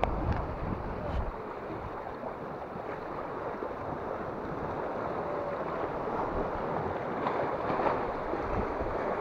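Wind buffeting the microphone over the wash of small waves breaking against sea rocks, with the low rumble heaviest in the first second and then easing.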